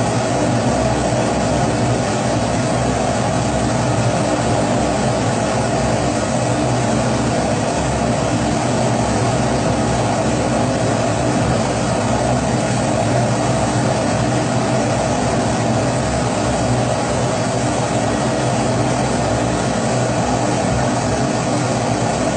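Kerosene pressure stove (primus-type) burner running steadily: an even rushing hiss with a low hum underneath, unchanging throughout.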